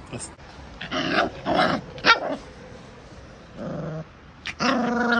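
A puppy about three and a half weeks old giving a string of short, high growly yaps and yips: a sharp yip about two seconds in, and a longer bark near the end.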